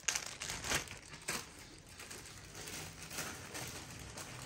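Faint rustling and crinkling of a plastic packaging sheet being handled, with a few sharp crackles in the first second and a half.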